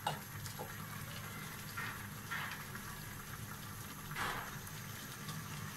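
Chopped tomatoes simmering in their own released juice in a saucepan, bubbling with a few soft pops over a steady low background hum.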